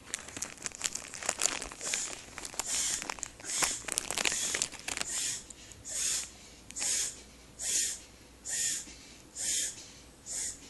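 A pet animal coughing: a run of crackling and rustling, then about seven hissy, wheezing coughs a little under a second apart.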